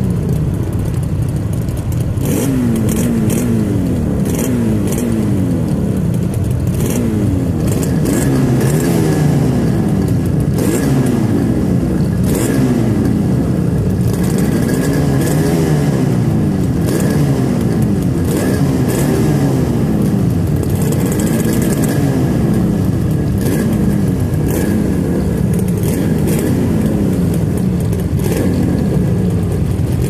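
Two Yamaha RD350 two-stroke parallel-twin motorcycle engines running together: one high-torque and one low-torque version. Their combined tone sweeps up and down every couple of seconds, with scattered sharp crackles from the exhausts.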